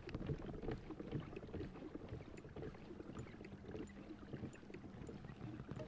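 Faint water lapping against a kayak hull, with small irregular ticks and knocks.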